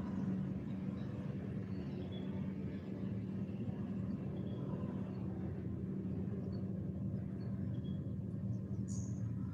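Steady outdoor background noise: a constant low hum, like a distant engine or traffic, with a few faint high chirps and a brighter one near the end.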